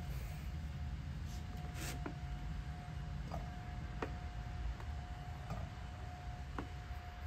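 Cherry tomatoes set one by one into an empty cast iron skillet, a handful of light taps spread over several seconds, with a plastic clamshell box rustling near the start. A low steady rumble and a faint steady high tone run underneath.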